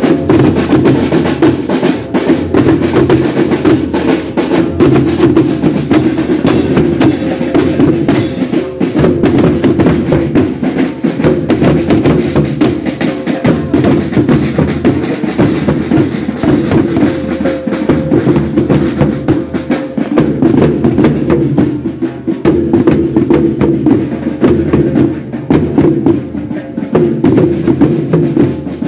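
Marching band drum section playing a continuous parade beat, snare drums rolling and rattling over steady bass drum strokes.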